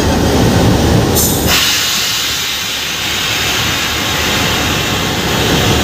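Compressed air hissing steadily out of the locomotive's SA9 independent brake valve as it is released, venting the brake cylinders. The hiss starts about a second and a half in, and a low rumble drops away as it starts.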